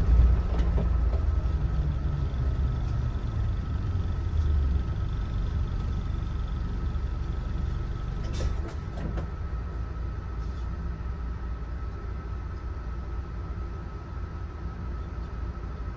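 A Mitsubishi Fuso Aero Ace bus's diesel engine and road rumble heard from inside the cabin while driving, slowly getting quieter, with a faint steady high whine throughout. There is a short sharp sound about halfway.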